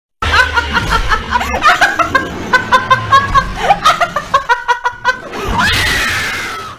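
A young woman laughing hard in quick repeated bursts, breaking into one long high-pitched scream near the end.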